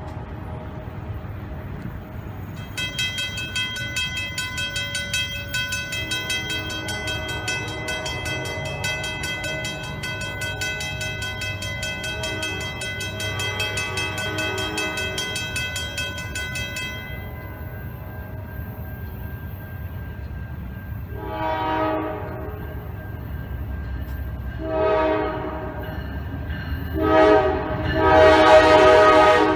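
A bell rings rapidly for several seconds, then stops, over the low rumble of an approaching train. Then a locomotive horn sounds long, long, short, long, the standard grade-crossing signal, with the last blast still going at the end.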